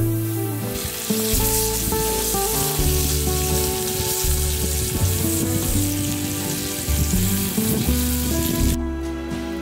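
Food sizzling in a hot pan: a dense frying hiss that starts about a second in and cuts off abruptly near the end. Mellow guitar background music plays underneath.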